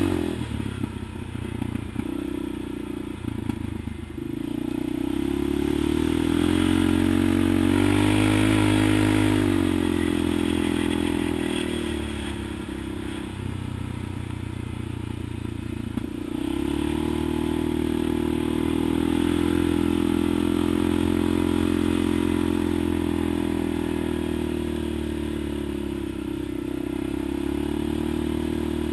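ATV engine running under load on a dirt track, its pitch dropping and rising as the throttle is eased off and opened again, then held fairly steady at speed for the second half.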